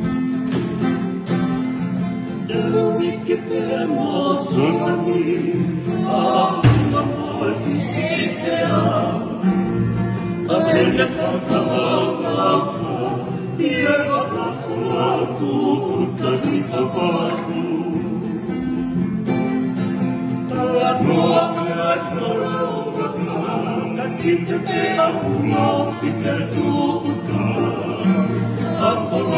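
Several men singing a Tongan hymn together to two strummed acoustic guitars. A sharp thump about seven seconds in is the loudest moment.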